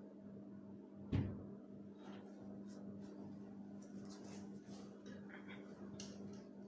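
A single dull thump about a second in, over a steady low electrical hum, with faint scattered clicks and handling knocks after it.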